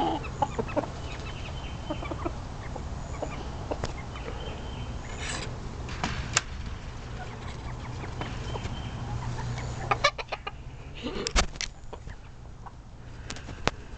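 Chickens clucking in short, scattered calls over a low steady hum, with a cluster of sharp knocks about ten seconds in and another near the end.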